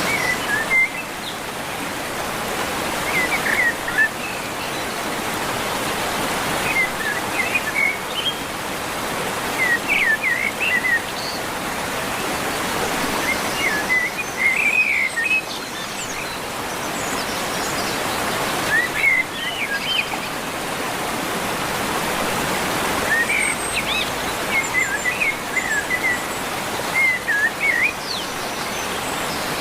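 Steady rush of a waterfall, with songbirds chirping in short bursts every few seconds over it.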